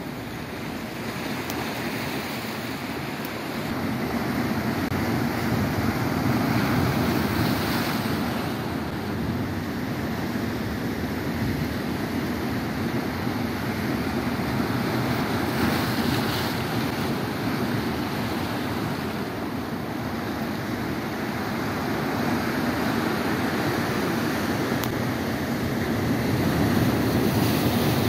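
Sea surf breaking and washing over a rocky shore, a continuous rushing that swells and eases as each wave comes in, with wind buffeting the microphone.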